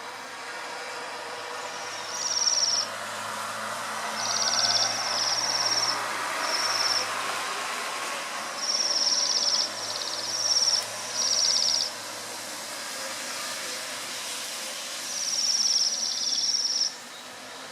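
Waxwings giving high, thin trilling calls: about nine short trills, each under a second long, with gaps between them, over a steady background hiss.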